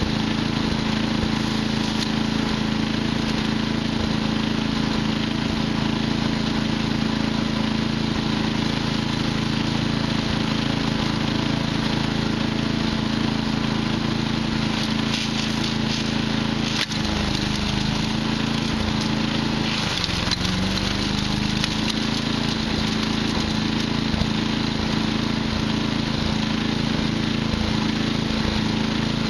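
Patriot wood chipper's gas engine running at a steady speed while chipping wood. Its pitch sags briefly under load about two-thirds of the way through, then recovers.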